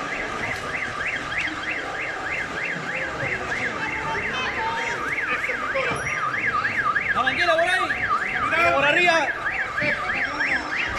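Electronic siren in a fast yelp, its pitch sweeping up and down about three times a second without a break. A second, lower wavering sound joins it for a couple of seconds past the middle.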